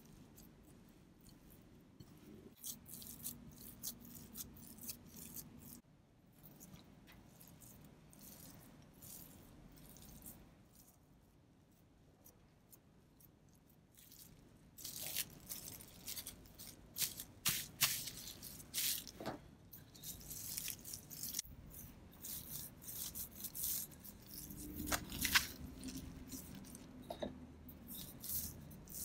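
Hands kneading crumbly butter-and-cheese dough in a glass bowl, soft scraping and squishing. From about halfway, plastic cling wrap crinkling and crackling in quick irregular bursts as the dough is pressed flat and wrapped in it.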